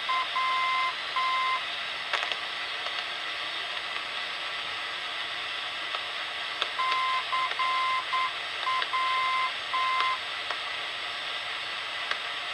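Long wave airport beacon sending its call sign in Morse code, heard through a portable radio's speaker: a steady beeping tone keyed in dots and dashes. The call sign is keyed twice, once right at the start and once in full from about seven to ten seconds in. Under it runs a constant hiss of radio static with a few static clicks.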